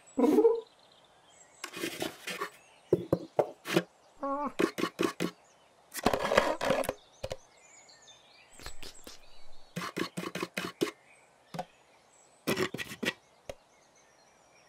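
Cartoon sound effects of a cat climbing a tree trunk and onto a wooden nest box: repeated bursts of claw scratching and tapping, with a couple of short cat grunts, one near the start and one about four seconds in.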